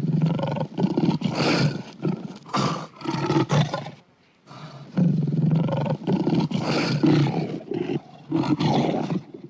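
Custom monster roar sound effect, a kaiju-style roar layered from film monster roars and animal roars. One long, pulsing roar, a short drop about four seconds in, then a second long roar.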